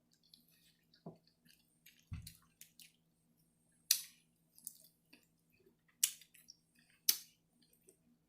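A person eating close to the microphone: wet chewing and short mouth smacks and clicks, spread out every second or so, over a faint steady hum.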